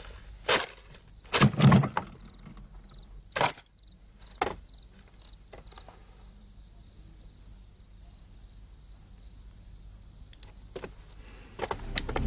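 A wooden chest being unlocked and opened: a few clunks and metal clinks from its lock and lid, the heaviest a dull thud about a second and a half in, then quieter rustling and a few small clicks near the end.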